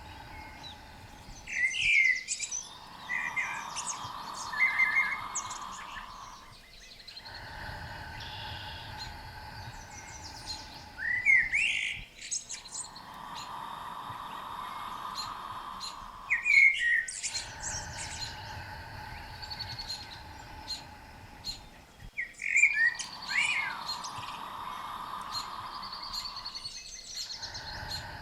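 Songbirds chirping in short bursts every few seconds over a soft, steady tone that swells for about four seconds out of every ten, pacing a 5-in, 5-out breathing cycle.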